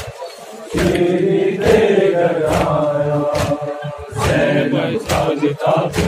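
A group of men chanting a Shia noha lament together, with the slaps of matam, hands beaten on chests in unison, landing about once a second.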